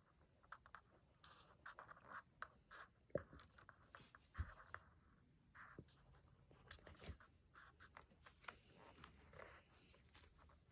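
Faint scratching of a liquid chalk marker's felt tip on a card colouring page, in many short strokes and dabs, with a few knocks along the way.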